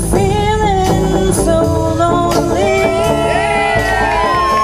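Live rockabilly band: a woman singing over upright bass, electric guitar and snare drum, ending on a long sung note that slides upward near the end.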